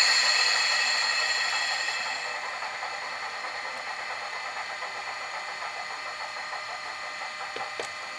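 A model locomotive's sound decoder playing a diesel engine sound through its small speaker. The engine note is loud at first, eases down over the first two or three seconds, then runs steadily, with a couple of faint clicks near the end.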